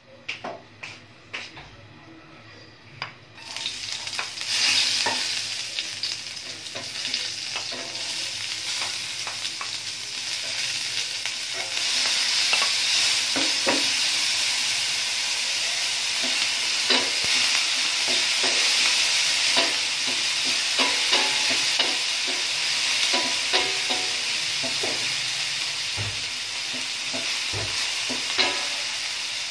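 Diced ingredients frying in hot oil in a stainless steel frying pan: a sizzle starts about three and a half seconds in and grows louder around twelve seconds, then holds steady. A wooden spoon stirs through it, knocking and scraping against the pan now and then.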